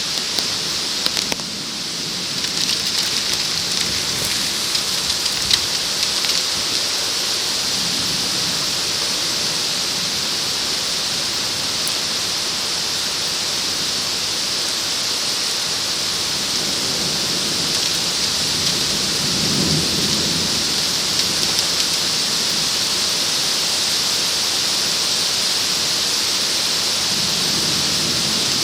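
Torrential wind-driven rain in a downburst storm: a steady, loud hiss, with a few drops ticking on the plastic sheet over the camera in the first seconds. Low rumbles swell about twenty seconds in and again near the end.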